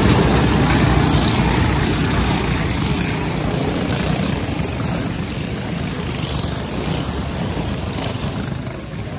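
A pack of racing go-kart engines running as the karts pull away from the grid, the sound slowly fading as they move off.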